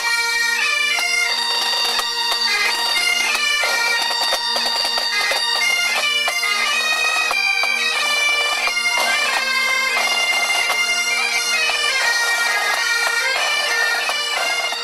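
Highland bagpipes of a pipe band playing a marching tune over their steady drones.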